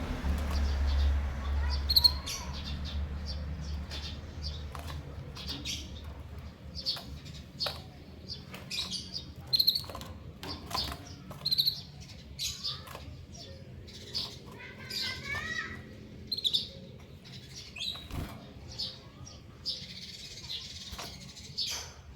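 A caged female canary and male white-headed munia making short, high chirps about once a second, mixed with clicks of the birds hopping on perches and bars. About two-thirds of the way through comes a brief soft twittering phrase, and near the end a rustle of fluttering wings.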